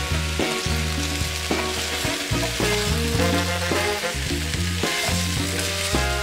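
Diced sweet potatoes, potatoes, carrots, red pepper and celery sizzling in a stainless steel pot as they are stirred with a wooden spoon. Instrumental music with a repeating bass line plays underneath.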